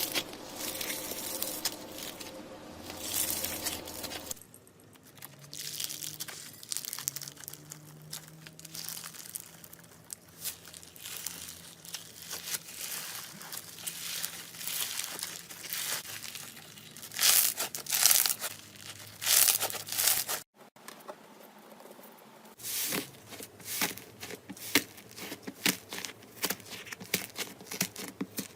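Slime being squeezed and poked by hand, making irregular crackling, clicking and popping sounds, with a louder run of pops a little past the middle. The background changes abruptly twice, where one slime clip gives way to the next.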